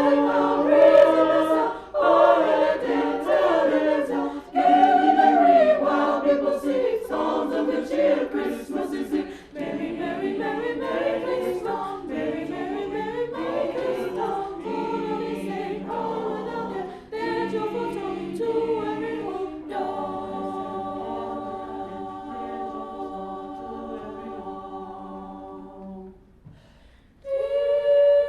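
A choir singing a cappella, ending on a long held chord that fades away about 26 seconds in; after a short pause the choir starts singing again near the end.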